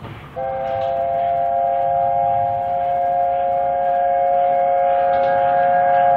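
The chime whistle of LNER A4 Pacific 60009 Union of South Africa giving one long, steady three-note blast, sounded as a farewell. It starts about half a second in and cuts off abruptly at the end.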